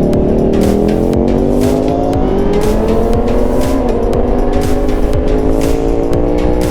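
Yamaha R6's inline-four engine through its stock exhaust, accelerating under way: the pitch climbs steadily, drops back at an upshift about two seconds in and again about four seconds in, then climbs once more.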